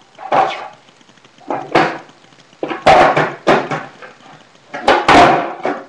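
Skateboard deck and wheels knocking and slapping on a concrete garage floor: a series of sharp hits, with a quick cluster about three seconds in and the loudest hit about five seconds in.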